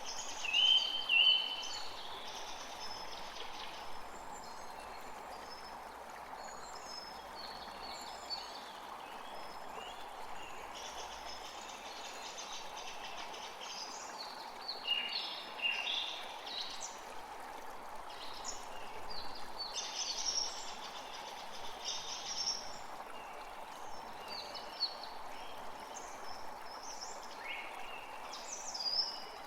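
A forest creek running steadily, with several songbirds singing and chirping over it in short phrases, the loudest calls about a second in and again about halfway through.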